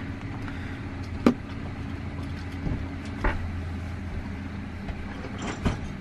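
Steady low background hum with three sharp taps or knocks on top, the loudest about a second in and the others at about three and five and a half seconds.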